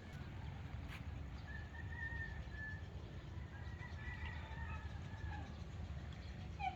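Faint bird calls, short scattered chirps, over a steady low rumble, with a single sharp click about a second in.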